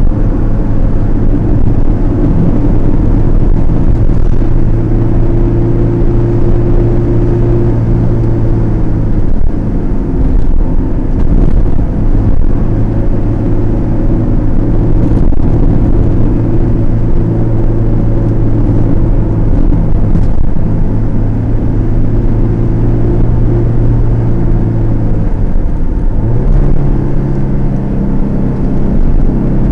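Car engine and tyre noise heard from inside the cabin while driving, a steady drone. Near the end the engine note dips, then settles higher.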